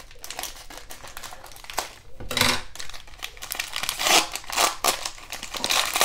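Cellophane wrapper of a pack of trading cards being torn open and crinkled by hand: an irregular string of crackles, loudest about two and a half and four seconds in.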